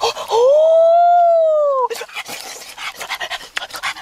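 A man's voice: one long high 'ooh' cry that rises and then falls, lasting about a second and a half, with quick huffing, panting breaths and mouth noises before and after it.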